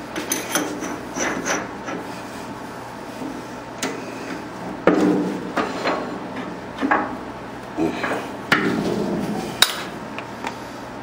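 Irregular metal knocks, clinks and scraping as lathe tooling is handled by hand and a long steel rod is worked into the bore of a part held in a stopped metal lathe's four-jaw chuck. The loudest knocks come about halfway through, with a sharp click near the end.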